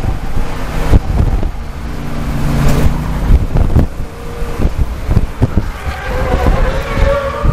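Mad Bomber class race car engine running under race load, heard from inside the cockpit, with frequent sharp knocks and rattles from the car's body and cage. A higher engine note comes in near the end.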